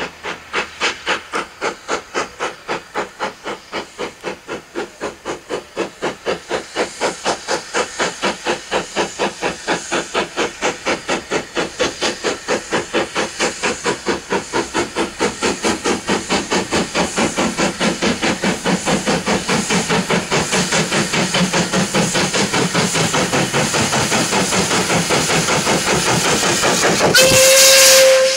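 Caledonian Railway 0-6-0 steam locomotive No. 828 working hard as it pulls away with its train: loud, regular exhaust beats that come faster as it picks up speed and grow louder as it draws near, over a hiss of steam. Near the end, as it passes close, there is a loud rush with a steady high note.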